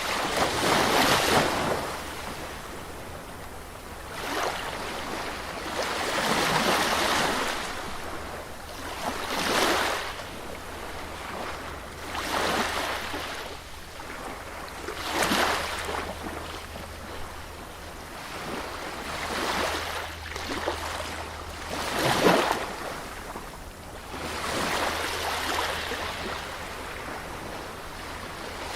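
Sea surf breaking on a beach, a wave washing in every two to three seconds, with a steady low hum underneath.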